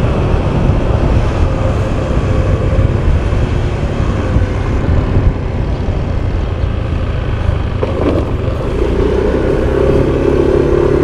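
Motorcycle riding at cruising speed: a steady rush of wind buffeting the mounted microphone over engine and tyre noise, with the engine's hum standing out more clearly near the end.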